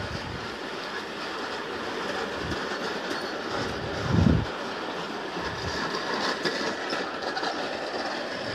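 G scale model train running around an oval of track: a steady whir and rattle of its motors and wheels on the rails, with a few low thumps, the loudest about four seconds in.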